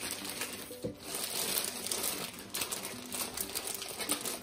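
Plastic candy bag of Kraft Caramels crinkling as it is handled and pulled at to get it open, with a light knock about a second in.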